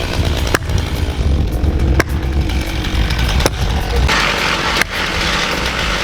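Chainsaw running under load, cutting into the trunk of a large beech tree, with several abrupt breaks in the sound. About four seconds in it turns harsher and brighter.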